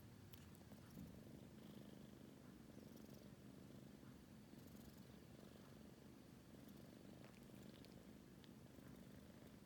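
A kitten purring, faint and steady.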